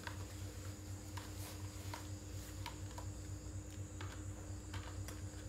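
Faint, scattered clicks and taps of a plastic crocodile toy handled by a baby monkey, over a steady low room hum.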